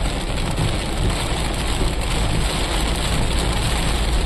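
Heavy rain hitting a moving car, heard from inside, with a steady low rumble of engine and road noise underneath.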